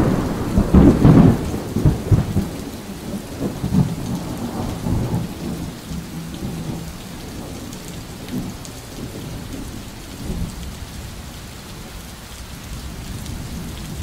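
Thunder rumbling loudly in the first couple of seconds and fading away over several seconds, over steady rainfall.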